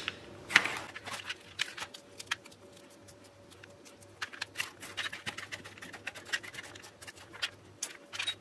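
Kitchen knife cutting a fresh jalapeño on a plastic cutting board, with a sharp tap about half a second in, then scattered small clicks and scrapes as the pepper is split and seeded by hand.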